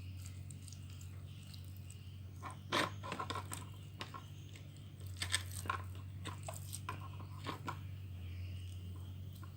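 Homemade glue slime being squeezed and stretched by hand, giving scattered sticky crackles and clicks, bunched about two and a half seconds in and again from about five seconds in; the slime is still slightly sticky. A steady low hum runs underneath.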